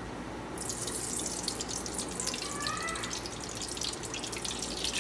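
Cooking oil poured from a bowl into a hot aluminium karahi on a gas burner, starting about half a second in, with a fine crackling sizzle as it meets the hot metal.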